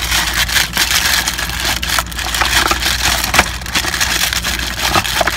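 Plastic packaging crinkling and rustling, with cardboard box handling, as a waterproof camera housing is unwrapped and worked out of its box: a dense, continuous run of small crackles.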